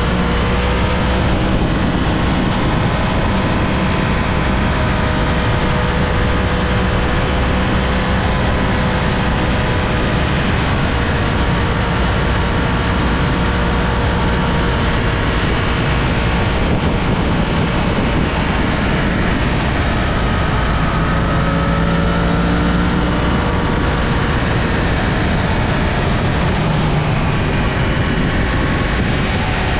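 Yamaha FZ-10 crossplane inline-four engine running at a steady cruise over a constant rush of wind noise. Its pitch drifts gently up and down as the throttle changes, with no sharp revs.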